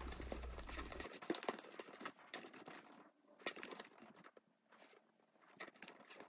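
Bamboo sushi rolling mat being pressed and rolled around a sushi roll on a wooden board: faint, scattered clicks and rustles of the bamboo slats.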